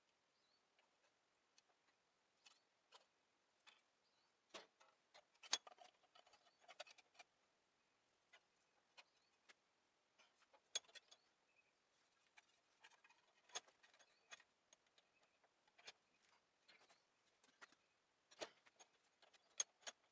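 Near silence broken by scattered faint, sharp clicks and light taps at irregular intervals, roughly one every second or two.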